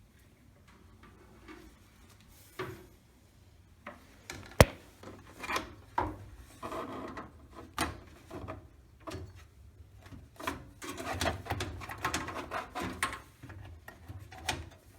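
Handling noises of a motherboard being fitted into a PC case lying on its side: scattered clicks and knocks, one sharp loud click about four and a half seconds in, then a long run of rubbing and scraping.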